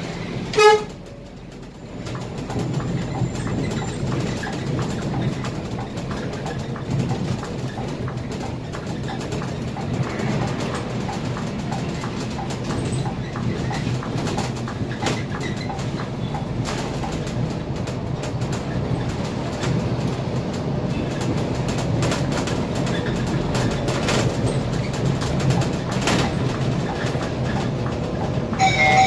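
Scania K320IA city bus driving in traffic, heard from the driver's seat: steady engine and road rumble. A short, loud beep comes about a second in, and a fainter pitched sound near the end.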